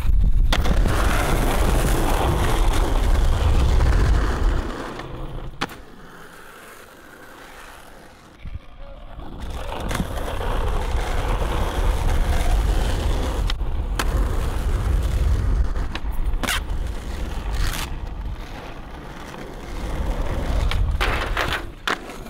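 Skateboard wheels rolling over rough asphalt in a steady rumble, broken by several sharp clacks of the board's tail popping and landing, most of them in the second half.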